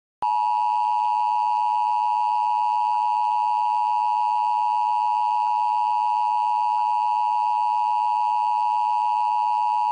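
Emergency Alert System attention signal: a loud, steady alert tone that starts a moment in and holds unchanged, the signal that announces an emergency message is about to be read.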